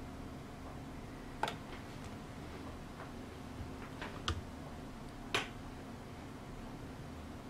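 A few small sharp clicks, four or five scattered ones with the loudest near the end, from fingers handling a smartphone, over a faint steady hum and hiss.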